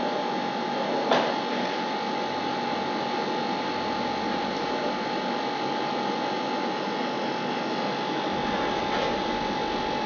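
Steady whirring machine noise with a constant high whine running through it, and one short click about a second in.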